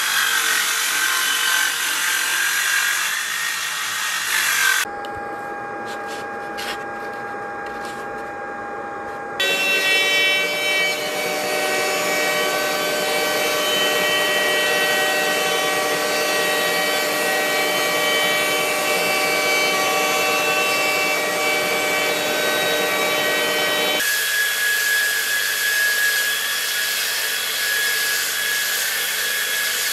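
A saw table cutting a hardwood board, then, after a quieter few seconds of steady machine hum with a few clicks, a handheld router running with a steady whine as it cuts the wood. Near the end, a belt grinder sanding the wooden board.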